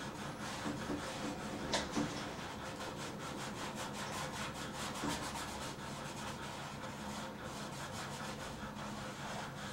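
Paintbrush scrubbing across canvas in rapid, repeated short strokes, busiest through the middle, with two sharp light taps about two seconds in.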